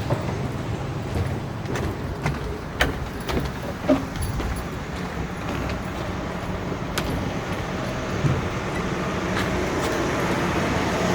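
Steady motor-vehicle and road noise with a low hum, broken by a few short clicks and rattles.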